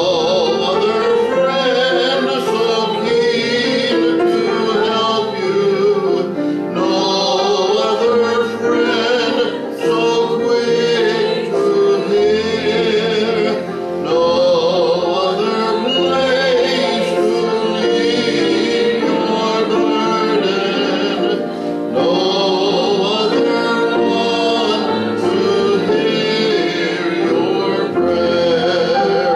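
Congregation singing a hymn with piano accompaniment, the voices in long, slow phrases.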